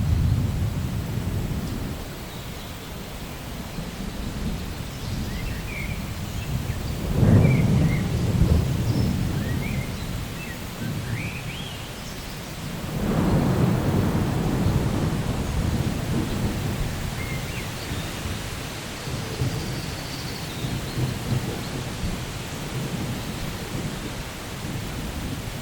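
Steady rain with thunder rolling through it: a sudden crack about seven seconds in that rumbles away, then a second long rumble that swells around thirteen seconds in and slowly dies down.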